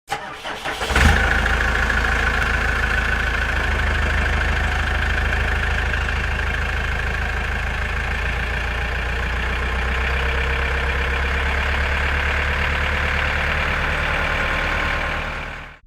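An engine starting with a few uneven pulses, then running steadily, until it cuts off abruptly near the end.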